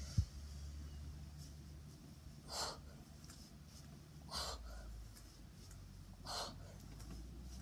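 Sharp forceful breaths, one with each rep of one-arm kettlebell snatches with a 20 kg bell: three short hissing breaths about two seconds apart. A low thump comes at the very start.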